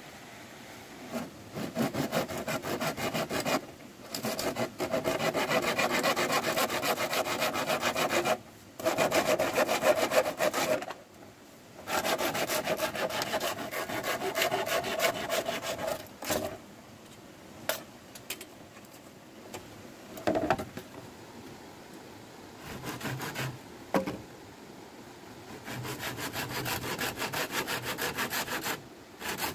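Hand saw cutting across a bamboo pole in quick back-and-forth strokes. The strokes come in several long runs broken by short pauses, with a few separate knocks in a quieter stretch past the middle.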